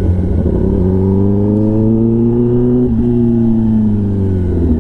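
Kawasaki ZX-10R inline-four engine through an SC-Project titanium exhaust, on the move. Its pitch rises for about three seconds, breaks briefly, then falls away steadily.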